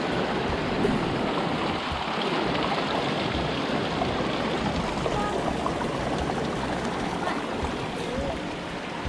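Steady rush of running water: hot spring water flowing among rocks and pools.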